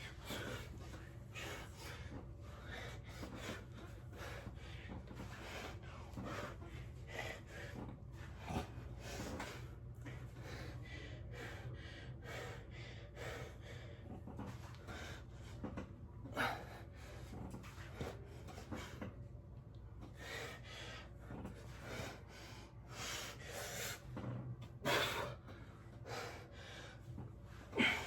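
A person breathing hard, with many short, sharp breaths of exertion and a few louder ones near the end, over a steady low hum.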